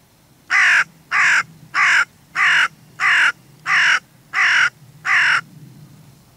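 Hooded crow cawing: eight loud caws in an even series, about three every two seconds, each dropping in pitch.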